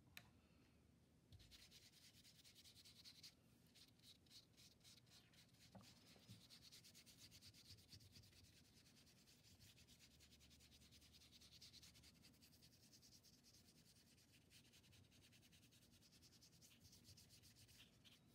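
Faint paintbrush bristles scrubbing quickly back and forth over wet paint on paper, blending colours into brown; the strokes begin about a second and a half in.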